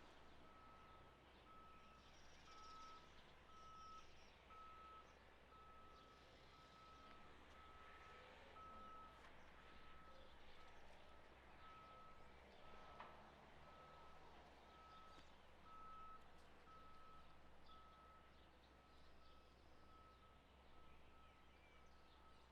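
Dock crane's warning beeper sounding a steady single-pitch beep about once a second, faint, over a low steady machinery hum.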